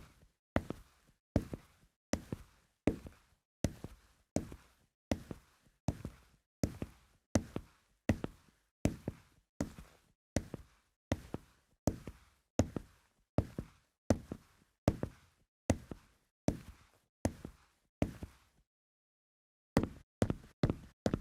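Boot footsteps on a hardwood floor, a steady walking pace of about one and a half steps a second. Near the end they stop for about a second, then start again at a quicker pace.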